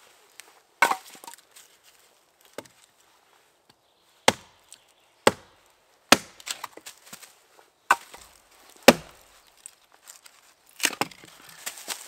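Chopping blows into wood: about eight sharp strikes at an uneven pace, some followed by a short splintering crackle, with a quick flurry of blows near the end.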